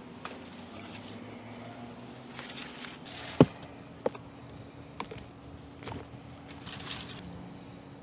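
Hands handling grapevines and netting while picking grape clusters: rustling twice, with several sharp clicks, the loudest about three and a half seconds in. A steady low hum sits underneath.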